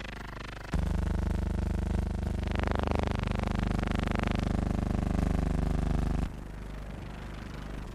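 A steady, motor-like drone with a fast regular pulse. It becomes much louder about a second in and drops back down about six seconds in.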